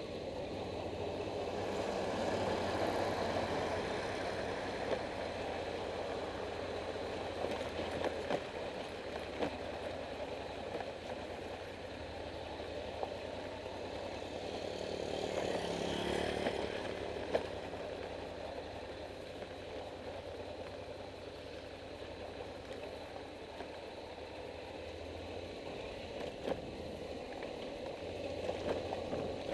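Vehicle engine running steadily on the move, with road and wind noise, swelling louder twice.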